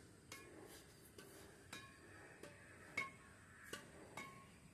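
Faint sharp pings of a shuttlecock being struck by badminton rackets during a rally, each with a brief ring, about eight at irregular intervals, the loudest about three seconds in.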